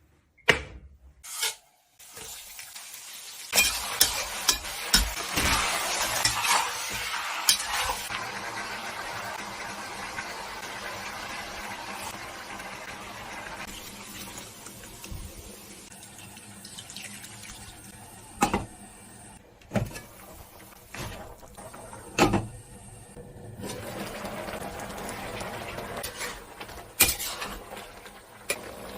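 Kitchen sounds: water running into a sink, loudest in the first few seconds and then steadier, with a few sharp knocks of pots or dishes.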